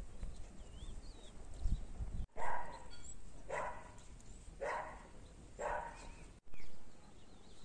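A dog barking four times, about once a second, with birds chirping faintly in the background.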